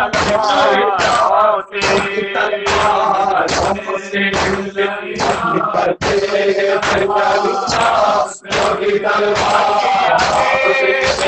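Men chanting an Urdu noha (mourning lament), a lead voice on a microphone with the group joining in, over rhythmic chest-beating (matam) at about two strikes a second.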